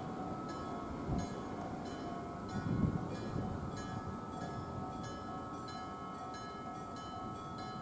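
Railway level-crossing warning alarm: an electric bell striking about one and a half times a second over a steady electronic alarm tone. Under it, a Randen train's wheels rumble across the crossing, with two heavier thumps a little after one second and near three seconds in, then the rumble fades.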